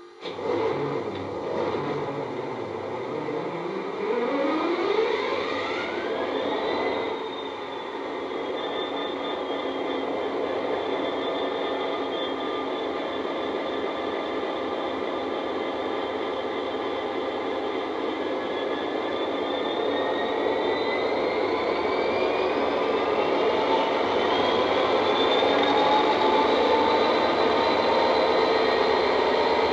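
Model-railway sound decoder (ESU LokSound 5 through an EM2 speaker) playing a Class 66 locomotive's EMD two-stroke V12 diesel starting up. A whine rises over the first several seconds, then the engine settles into a steady idle. A second rising whine comes in past the middle and holds.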